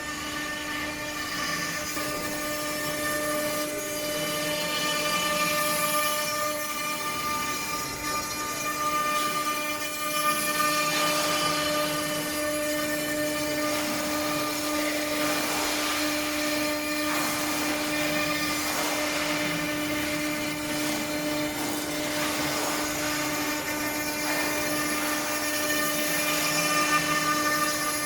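Spindle of a vertical CNC stone engraving machine running with a steady whine while its cutter works the stone, giving a gritty hiss that swells and fades.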